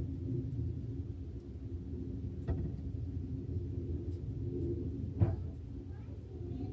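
Steady low rumble with a faint hum, broken by two short knocks, the second, about five seconds in, the loudest.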